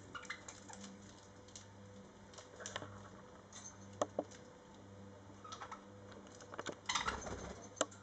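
Budgerigars clambering and pecking about a hanging straw-and-rope toy hung with wooden beads and rings: scattered light clicks and taps with straw rustling, busiest about seven seconds in, over a faint steady low hum.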